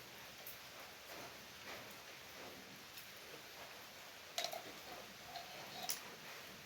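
Faint metallic clicks and taps of a spanner working the old nuts on a washing machine spinner motor's brake. Two sharper clicks come about four and a half and six seconds in, with brief thin squeaks between them.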